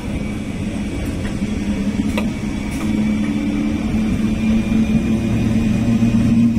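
Indian Railways MEMU electric multiple-unit train running past at close range, with a steady electric hum and rumble of wheels on rail. The hum grows louder over the last few seconds as the louvred motor coach goes by, and a couple of sharp clicks sound about two seconds in.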